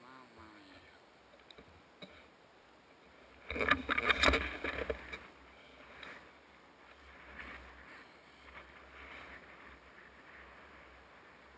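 Rustling and knocking of an action camera being handled and moved, with one loud stretch of clatter lasting about a second and a half a few seconds in; otherwise faint and quiet.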